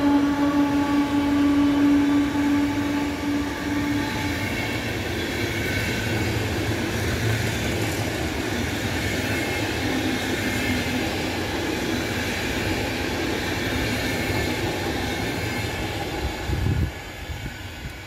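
Passenger train hauled by a PKP EP09 electric locomotive running past. The locomotive's steady tone fades out over the first few seconds, then the carriages rumble and their wheels clatter on the rails until the sound drops off as the last car goes by, about 17 seconds in.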